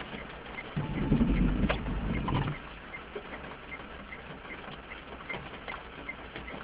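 Inside a parked car in the rain: a windscreen wiper sweeps once across the wet glass about a second in, lasting about a second and a half, over a steady ticking of about two and a half clicks a second from the car's indicator flasher and light raindrop taps on the glass.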